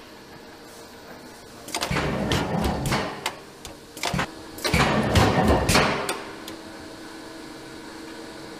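Metal tool tray sliding in a steel rack, scraping and rattling with several sharp clanks for about four seconds, over a steady machine hum.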